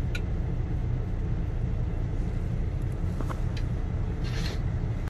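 Steady low rumble of a semi truck's idling engine heard inside the cab, with a few faint clicks and a short faint hiss near the end.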